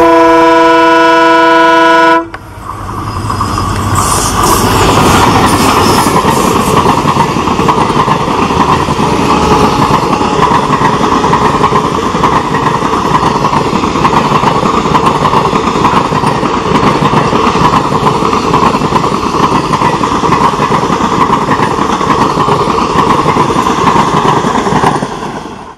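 EMD WDP4 diesel locomotive's horn sounding one blast of about two seconds, then the passenger train passing close: a steady rush of wheel and rail noise as the coaches go by, with the wheels clicking over rail joints in an even rhythm. The sound cuts off suddenly at the end.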